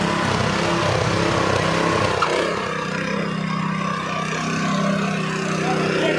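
Small single-cylinder Honda four-stroke petrol engine on a walk-behind power tiller running steadily under load as its tines churn sandy soil.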